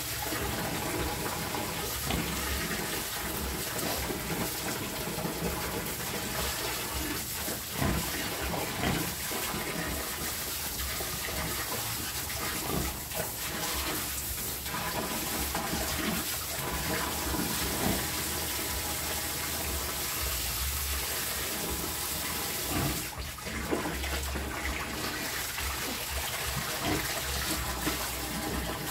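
Water running and gushing steadily while a piglet pen is washed out, with a few short knocks.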